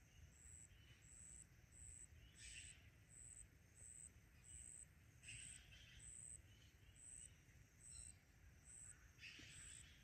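Near silence: faint outdoor ambience with a high, thin insect chirp repeating evenly about one and a half times a second, and three short, soft rasping bursts.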